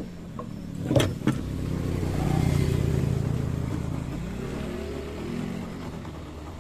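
A motor vehicle passing by, its engine rumble swelling and then fading over a few seconds. Two sharp clicks sound about a second in.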